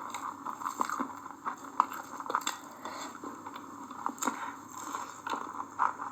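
Close-up eating sounds: chewing, with frequent small irregular clicks.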